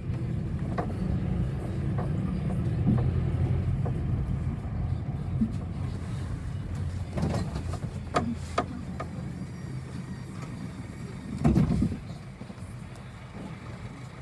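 City bus heard from inside the passenger cabin: steady engine and road rumble while moving, dying down as the bus slows to a near stop about halfway through. A few sharp clicks and a short louder burst of noise come later.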